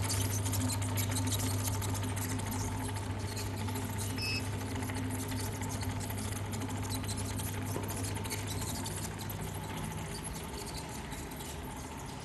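Automatic single-side bottle labeling machine running: a steady motor hum under a fast, fine clatter from its conveyor, with a short high beep about four seconds in.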